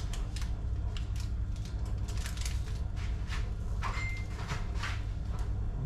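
Aluminium-foil package crinkling and rustling as it is handled and set down on a wire grill rack over a gas stove burner, giving many irregular light clicks over a steady low hum.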